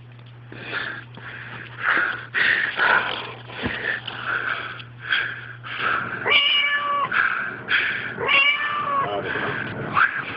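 Recorded cat sounds played through a hidden speaker: two drawn-out meows, about six and eight seconds in, amid short noisy bursts about twice a second over a steady low hum.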